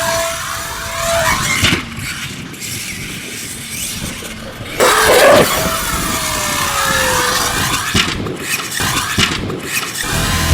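Traxxas X-Maxx electric RC monster truck driving by. Its motor whines, with a sudden surge about five seconds in, after which the whine falls in pitch as it passes, along with tyre noise.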